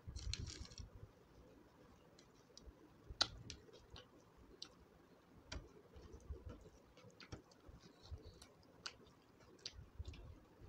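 Faint hand-eating sounds: chewing, with scattered sharp mouth clicks, and fingers mixing rice and dal fry on a steel plate. A short noisy rustle just after the start.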